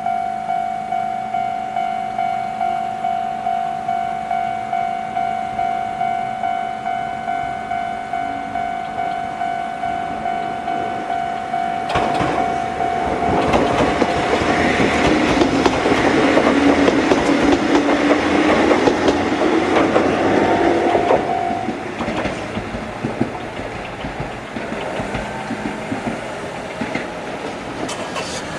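Old-type electronic level-crossing alarm ringing at a fast tempo, about two and a half strokes a second. Partway through, a Toyama Chihō Railway 14760-series electric train comes up and passes over the crossing with a rising tone under its running noise. The alarm cuts off about 21 seconds in as the train clears, and the train noise dies away.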